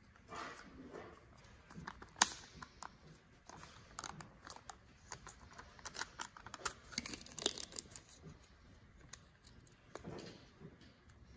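Peel-off lid of a Chick-fil-A dipping-sauce cup being pulled back by hand: quick crackling and tearing of the lid film, with a sharp click about two seconds in.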